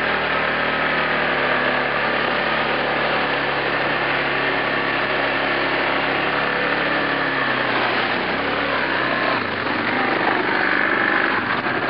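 Yamaha Grizzly 450 ATV's single-cylinder four-stroke engine running steadily as the quad rides through water. The engine note eases off about eight seconds in.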